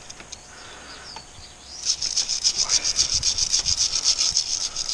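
A brass wire brush scrubbing in rapid short back-and-forth strokes, starting about two seconds in, cleaning built-up grime off motorcycle brake parts.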